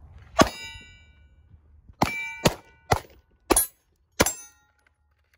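Six handgun shots: one, then five in quick succession about half a second apart. Each shot is followed by the ringing clang of a bullet hitting a steel target.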